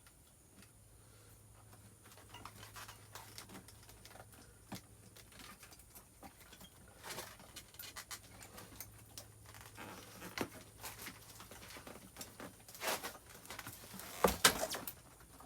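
Scattered small clicks and knocks of hands handling bike parts and tools, with a few louder knocks near the end, over a faint steady low hum.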